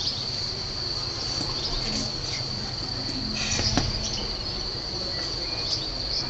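Steady high-pitched insect trill running without a break, with a single light knock a little past the middle.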